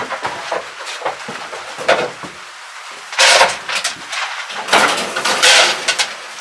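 Rustling and scraping noises with scattered knocks, loudest in two stretches about three and five seconds in.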